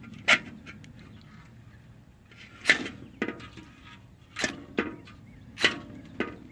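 Firefly mini ferro rod, the Swiss Army knife's toothpick replacement, struck against the knife to throw sparks: about seven short, sharp scrapes at uneven intervals.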